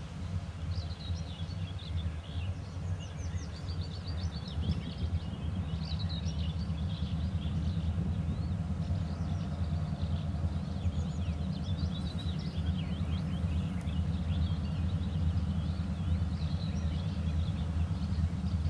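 Low, steady rumble of a 2TE10U diesel locomotive's 10D100 two-stroke opposed-piston engine running at a distance, with small birds chirping and singing over it.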